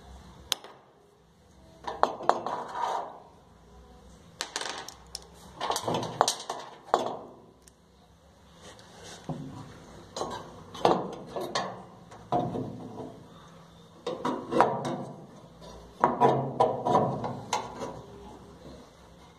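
Metal parts clinking and rattling in irregular bursts as they are handled inside a Whirlpool gas dryer's burner compartment.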